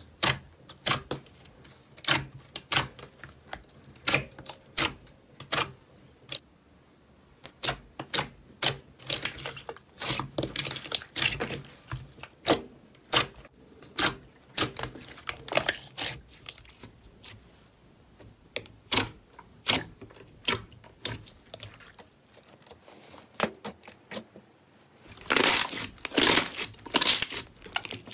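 Clear slime pressed and poked by fingers, giving off sharp, irregular clicky pops as trapped air bursts. The pops come one to a few a second and bunch into a louder, dense crackle near the end as the slime is folded and squeezed.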